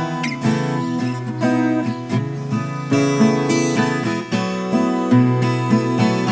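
Viola caipira, the Brazilian ten-string folk guitar, being plucked: a steady run of picked notes that ring on.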